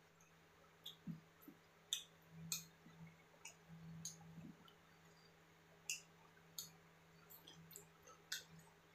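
Close-miked eating sounds: about a dozen short, sharp clicks and crunches from chewing, scattered irregularly, over a faint steady low hum.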